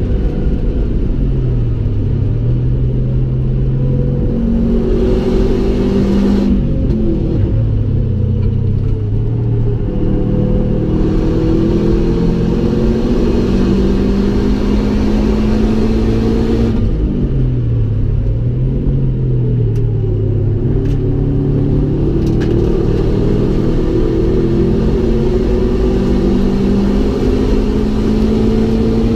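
Subaru Impreza WRX STI's turbocharged flat-four engine heard from inside the cabin on a hard track lap. The engine note falls and rises several times as the car brakes and shifts down for a corner, then climbs under full acceleration with gear changes, over a constant road rumble.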